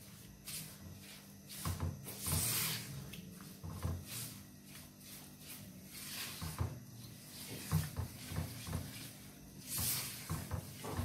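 Silicone spatula stirring and scraping a thick, wet semolina mixture around a non-stick wok in quick, irregular strokes, with soft thuds and two louder scrapes, about two seconds in and near the end. This is sugar syrup being worked into roasted semolina for halwa.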